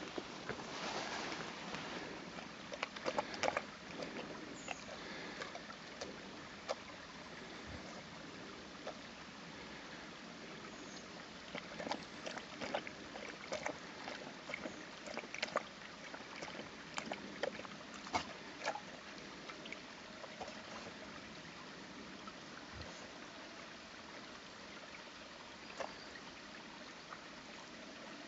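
Shallow forest stream running steadily, with frequent short splashes and clicks as an Akita inu wades and steps about in the water.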